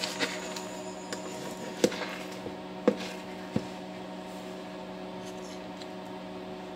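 Metal spoons clinking against a glass mixing bowl while scooping out soft cake dough: several sharp clinks over the first few seconds, then none. A steady low hum sits underneath.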